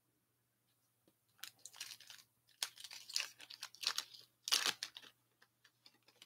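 Foil wrapper of a hockey trading card pack being torn open and crinkled, in a run of uneven rustles, loudest about four and a half seconds in.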